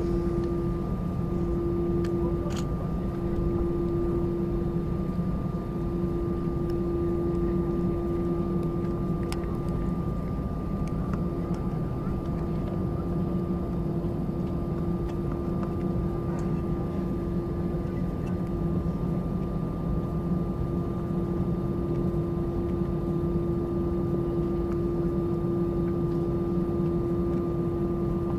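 Airbus A320-200 airliner's engines running with a steady hum and a constant tone, and no rise or fall in level.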